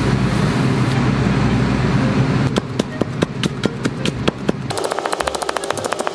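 Kitchen knife shredding the white of a Japanese long onion (negi) into fine threads on a cutting board: after a stretch of steady background noise, separate knife taps on the board about three a second begin halfway through, then speed up into a fast, even chopping run of about ten strokes a second near the end.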